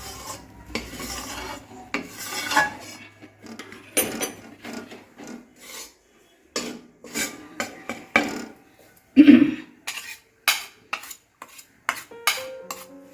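A spatula scraping and knocking against a pan, in irregular strokes, while stirring wheat flour roasting in ghee. The loudest knock comes about nine seconds in.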